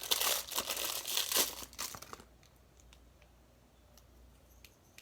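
Packaging crinkling and rustling as it is handled, stopping about two seconds in; after that only a few faint clicks.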